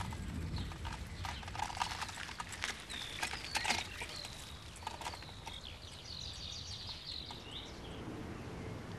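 Outdoor background of birds chirping in short high whistled notes, thickest from about six to seven and a half seconds in, over scattered light clicks and crunches.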